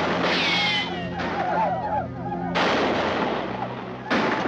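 Rifle shots with long echoing tails, two in quick succession, one about halfway in and another near the end. Wavering yells from charging riders sound between them.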